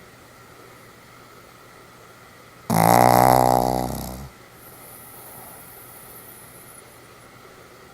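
A sleeping Pomeranian gives a single loud snore about three seconds in. It starts abruptly and fades away over about a second and a half.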